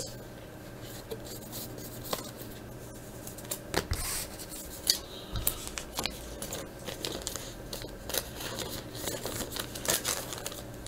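Trading cards and clear plastic card sleeves being handled: scattered rustles, crinkles and small clicks, over a faint steady hum.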